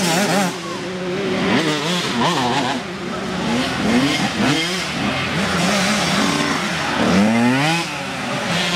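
Small dirt bike engines revving in a race, their pitch rising and falling with the throttle. One bike revs up sharply about seven seconds in as it passes close.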